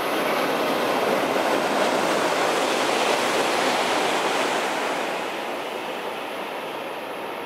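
Tohoku Shinkansen bullet train passing through a station at speed: a loud rush of air and wheels on rail that swells in the first second, holds for about four seconds, then fades as the train moves away.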